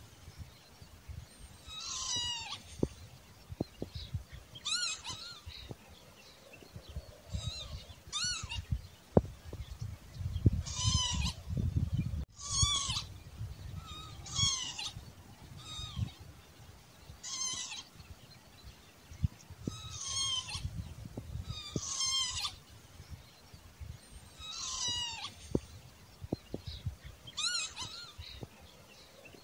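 Northern lapwing giving its wheezy, wavering 'pee-wit' call over and over, about one call every two to three seconds, over a low rumble.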